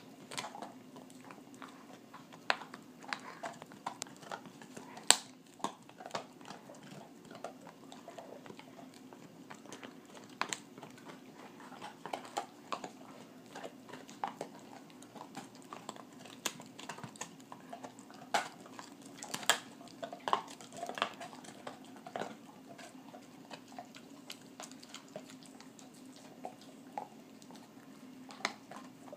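A golden retriever gnawing a raw beef rib bone: irregular chewing with sharp crunches and clicks of teeth on bone, the loudest about five seconds in.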